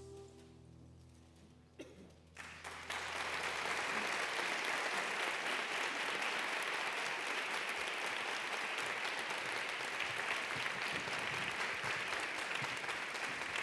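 The music fades out, a few scattered claps come about two seconds in, and then an audience breaks into steady applause.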